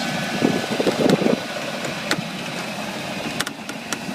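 Golf cart running along a driveway, with a louder rumble for about a second near the start and a few sharp clicks or rattles later.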